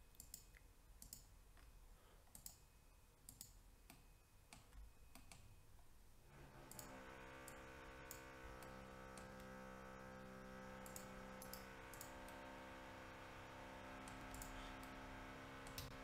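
Faint, scattered clicks of a computer mouse's buttons and scroll wheel. About six seconds in, a low steady hum made of several tones comes in underneath.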